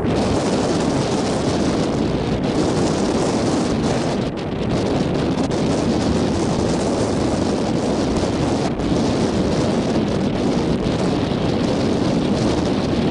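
Strong wind blowing across the microphone: a loud, steady rush of noise with a brief dip about four seconds in.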